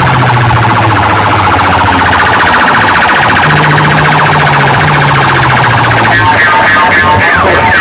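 Loud DJ sound-system competition track: a rapidly warbling, siren-like electronic tone over a stepping bass line. About six seconds in, a new pattern of pulsed beeps starts, with a falling swoop near the end.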